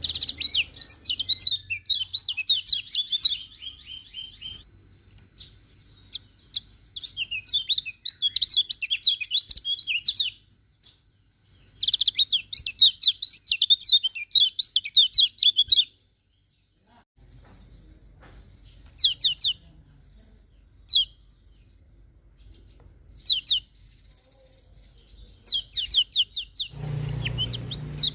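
Kecial kuning, a white-eye, singing in fast twittering phrases of high chirps a few seconds long, separated by pauses, with only a few single notes in the middle stretch.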